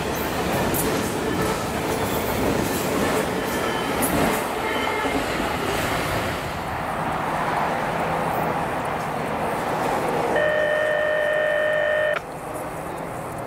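A freight train rolling past with steady wheel and rail noise and faint wheel squeal early on. Near the end a horn sounds for about two seconds and cuts off suddenly.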